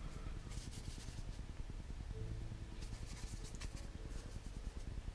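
A watercolour paintbrush scratching and scrubbing in short strokes as paint is worked, in a few brief patches over a low steady hum.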